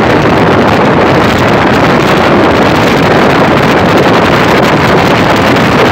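Strong wind buffeting the microphone of a phone carried on a moving motorcycle, a steady, loud rushing noise.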